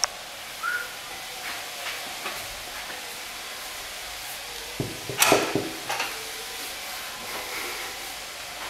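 Knuckles knocking on a wooden panelled door: several quick raps about five seconds in, over a steady faint hiss.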